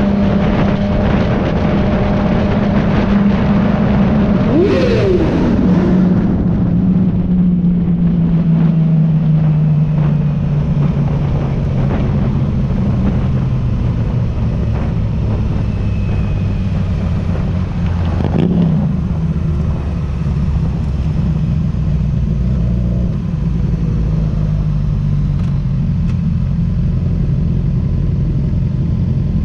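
Sport motorcycle engine running under the rider with wind rush, its note falling slowly as the bike slows in traffic. There is a quick rise-and-fall rev sweep about five seconds in and another about two-thirds of the way through. Near the end the engines idle at low speed among other motorcycles.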